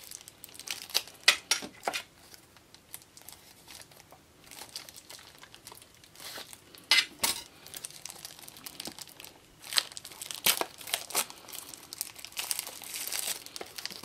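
Packaging being handled and opened by hand: irregular crinkling and rustling with scattered sharp clicks and taps, loudest about a second in and around the middle.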